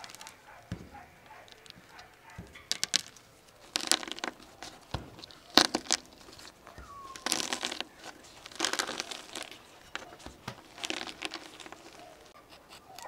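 Hands working a tomato on a wooden tabletop, rolling it and pulling at its skin: irregular short crinkling, tearing noises with quiet gaps between.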